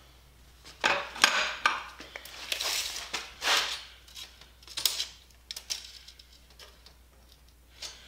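Metal clinks, knocks and scrapes as a welded flat-steel wheel rim is handled and a steel tape measure is pulled across it. The noises come as a string of separate strokes through the first several seconds, the loudest about a second in, then die down.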